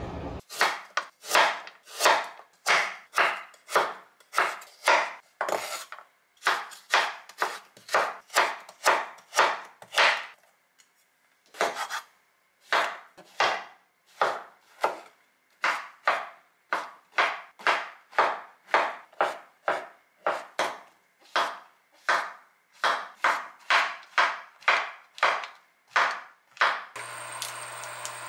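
Kitchen knife slicing king oyster mushroom into strips on a wooden cutting board, the blade knocking on the board in an even rhythm of about two strokes a second, with a short pause about ten seconds in. Near the end the knocks give way to a steady hiss.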